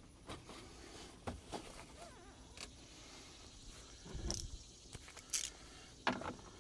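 Scattered light clicks and knocks of hands and tools working a tube loose from a Jeep engine, with a duller thump about four seconds in and brief scraping near the end.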